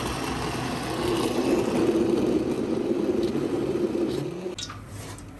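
Electric blender running, grinding tomatoes and onions into a paste, then switched off suddenly about four and a half seconds in.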